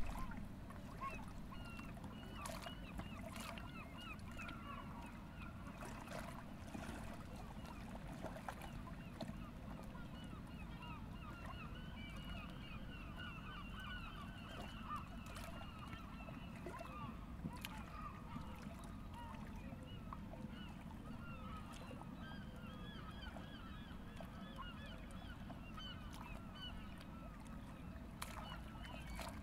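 A flock of birds calling continuously in many overlapping short calls, over a low steady background rumble.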